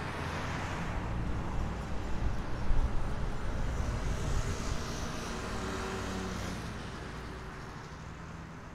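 A car driving past on the road, its sound building to a peak about three seconds in and then fading away.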